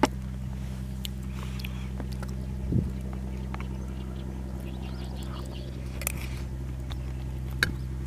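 A glass set down on a table with a sharp knock, followed by a spoon scraping and scooping rice in an aluminium mess tin, with small clicks. A steady low hum runs underneath.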